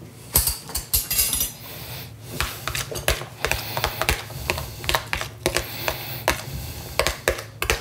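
Metal spoon stirring wet diced mango in a plastic tub, clicking and scraping against the sides in irregular clicks, several a second.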